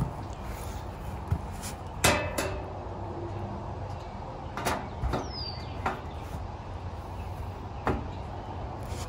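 Sheet-metal grill cart panels clanking and knocking as they are fitted together by hand. About half a dozen sharp metallic knocks are spread through the stretch; the loudest, about two seconds in, rings briefly.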